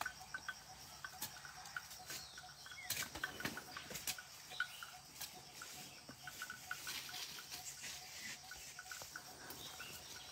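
Faint outdoor ambience with scattered light clicks and rustles and repeated short, high chirps.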